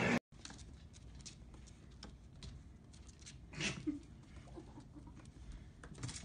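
Faint light tapping and scuffling of a kitten's paws on a wooden tabletop as it scrambles after a laser dot, with a slightly louder scuffle a little past halfway.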